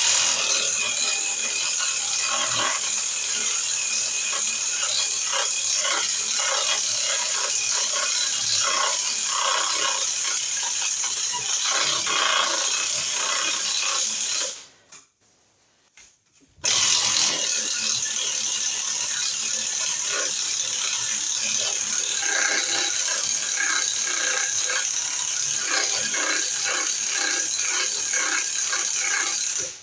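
Power drill boring a hole through wood framing for a wire run. It runs in two long stretches of about fifteen and thirteen seconds, with a short stop about fifteen seconds in.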